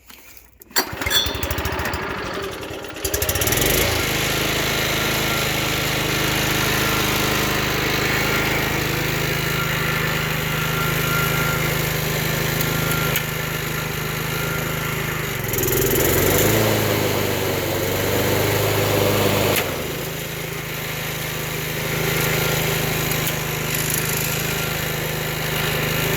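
A vintage Toro GTS push mower's 5 hp two-stroke Suzuki engine is pull-started: a yank on the cord about a second in, and the engine catches about three seconds in. It then runs steadily on choke, its note dipping and shifting a couple of times past the middle.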